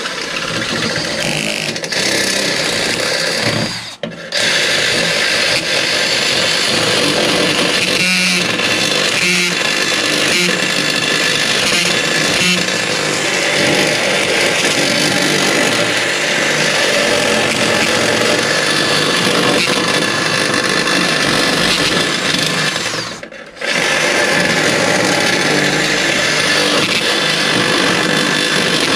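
Cordless DeWalt drill with a half-inch bit boring out the choke-cable hole in a lawn tractor's dash, running loud and almost without a break, with two short stops: one about four seconds in and one about 23 seconds in.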